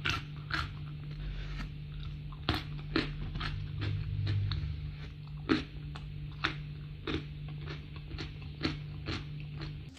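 Close-up eating sounds of fried salted fish dipped in sambal: crisp crunches and mouth clicks about twice a second as it is chewed, over a low steady hum.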